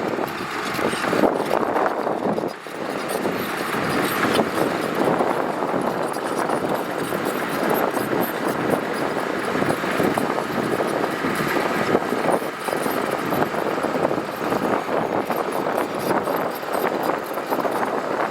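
Heavy earthmoving machinery working loose gravel: a steady, dense mechanical noise with constant crackling and clatter, briefly dipping a few seconds in.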